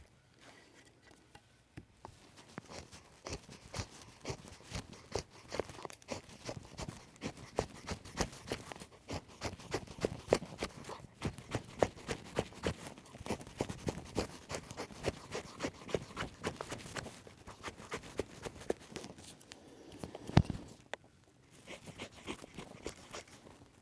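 Condor Mini Bushlore's small Scandi-ground carbon-steel blade shaving feather-stick curls off a wooden stick: quick scraping cuts, two or three a second, starting about two seconds in and stopping near the end, with one louder knock just before they stop.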